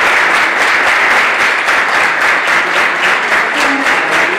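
Audience applauding: a steady wash of many hands clapping, with separate claps standing out more toward the end.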